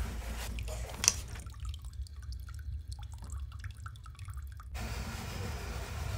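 Brush bristles swishing over a wet speaker cone, a sharp click about a second in, then small wet ticks and drips as glue is squeezed from a plastic bottle along the cone's edge, all over a steady low hum.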